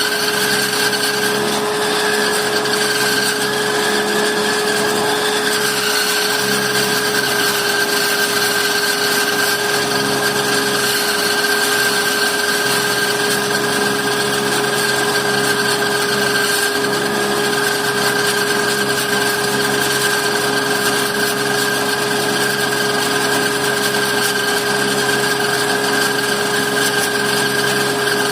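Electric woodworking power tool running steadily at constant speed, its motor giving a steady whine over the noise of the work.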